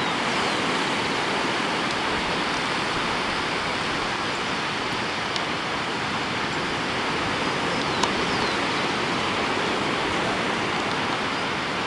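Steady rushing wash of sea surf breaking on a beach, an even noise that holds at one level throughout.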